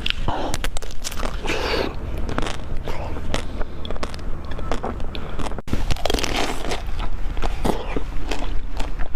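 Close-miked eating sounds: repeated crunchy bites and chewing of a dessert, with irregular sharp cracks and crackles.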